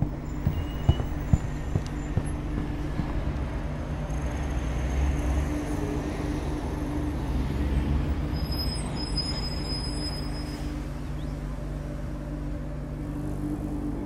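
Dark ambient drone score: a steady low rumble with held low tones. A few sharp taps sound in the first two seconds.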